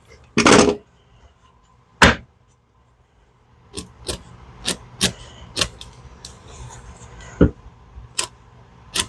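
Tools and small metal dowel parts being handled on a wooden workbench: scattered sharp clicks and clinks, roughly two a second in the second half, with a louder knock about seven seconds in.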